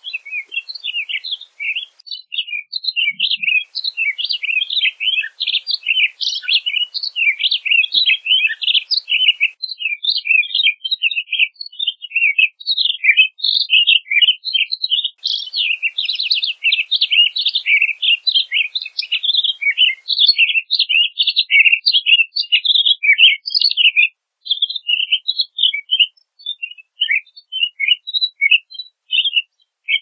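Pine grosbeak singing: a long, dense run of quick warbled and chirped notes that thins out to scattered chirps near the end.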